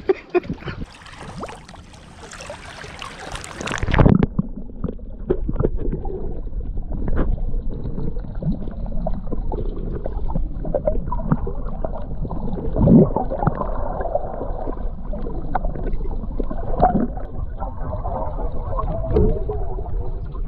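Water splashing for about four seconds, then a sudden change to muffled underwater sound heard through a submerged GoPro's housing: a low rumble of moving sea water with scattered clicks and knocks.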